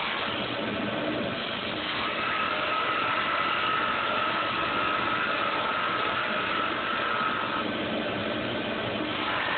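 Small CNC lathe running as it turns a duck call barrel, its motor and the cutting tool making a steady mechanical hum. A steady higher whine comes in about two seconds in and drops away near the end.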